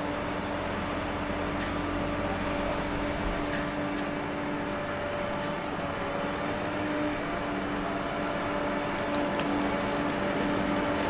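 Steady mechanical hum from a yellow utility truck standing on the street with its engine running, over general city-street noise.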